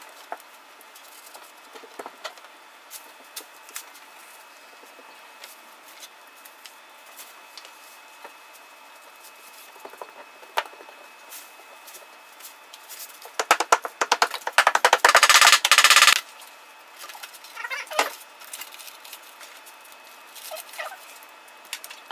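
Scattered light clicks and taps of marble mosaic tile sheets being handled and pressed onto the wall, then a loud crackling rattle lasting about two and a half seconds a little past halfway.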